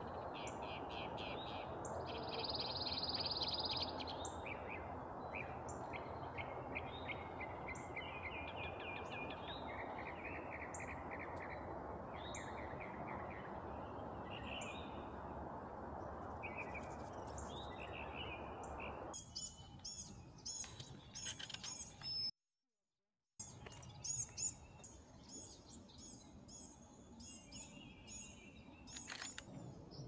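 Several songbirds singing and calling, with short chirps and trills, over a steady low background noise. About two-thirds of the way through the background noise stops and the birdsong becomes denser and clearer, broken by about a second of complete silence.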